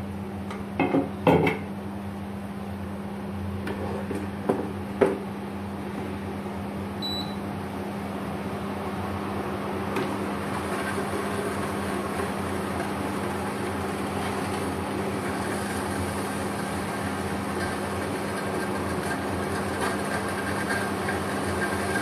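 Induction cooktop running with a steady electrical hum and cooling-fan noise. A few knocks as a cutting board and a stainless saucepan are handled in the first five seconds, and a faint hiss builds from about ten seconds in.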